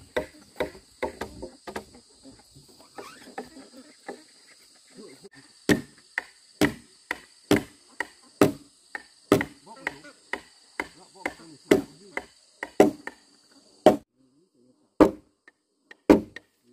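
Repeated blows of a hand tool striking wood. They are uneven and softer at first, then from about six seconds in come strong and regular at roughly two a second, with a short pause near the end. A steady high insect drone runs behind them and stops near the end.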